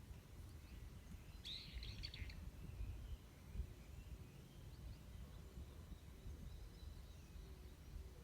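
Birds calling: a short burst of chirping about one and a half seconds in, then faint thin chirps, over a steady low outdoor rumble.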